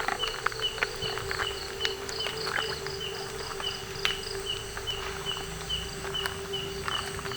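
Night insects: a cricket chirping evenly about two to three times a second over a steady insect hum, with scattered footsteps on the ground.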